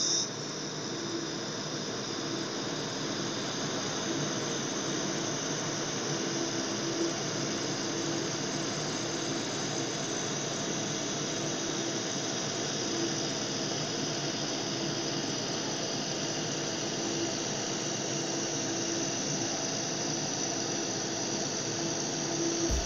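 THEO MA1 handheld fiber laser welder running a weld, as the torch is drawn along a steel plate: a steady hiss with a low, steady hum under it.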